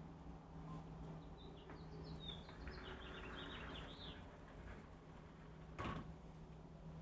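Small birds chirping in a quick run of short, high notes for a few seconds over a faint, steady low hum. A single sharp click comes near the end.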